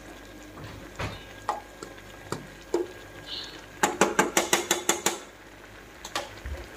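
Steel spoon clinking against a stainless steel pan while stirring noodles: a few separate clinks, then a quick run of about eight clinks near the middle, and one more near the end.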